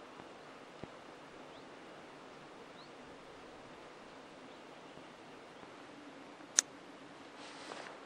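Quiet outdoor ambience with a steady soft hiss, and faint rustling of clothing and paracord as hands handle a bracelet. One sharp, high click comes about two-thirds of the way in, with a faint rustle near the end.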